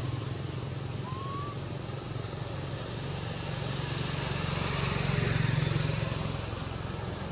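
A motor vehicle's engine running steadily, getting louder around five seconds in and then easing off, as a vehicle passing on the road would. A short, high rising squeak about a second in.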